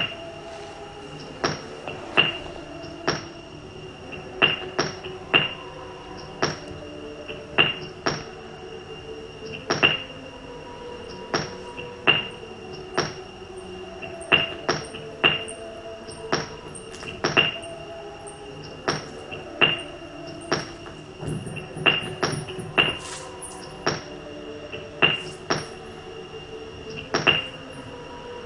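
A sound performance: sharp strikes at roughly one a second, slightly irregular, each ringing briefly at a high pitch. They sound over steady sustained lower tones.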